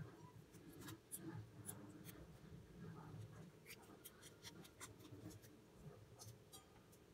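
Very faint handling sounds: scattered soft clicks and rubbing as fingers pull a grapefruit's segments apart and strip off the white pith, over low room noise.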